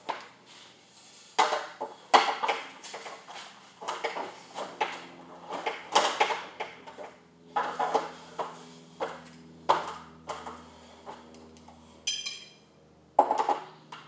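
Steel garage-door winding bars clanking and clinking as they are handled, a string of sharp metal knocks. About twelve seconds in a bar rings briefly with a high metallic ping.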